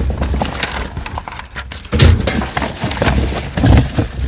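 Junk and scrap being rummaged through and shifted by hand: irregular knocks and clatter, with a louder hit about two seconds in.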